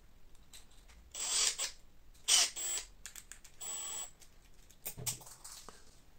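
Cordless screwdriver running in three short bursts, driving M3 machine screws into a 3D-printed plastic part, followed by a few light clicks of plastic parts being handled.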